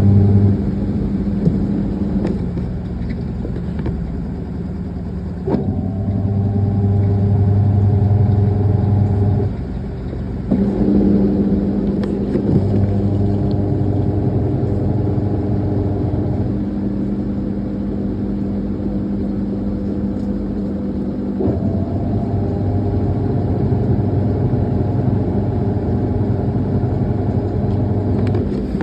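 Midea washing machine in its spin cycle: the motor hums steadily, its tone pattern shifting abruptly every few seconds.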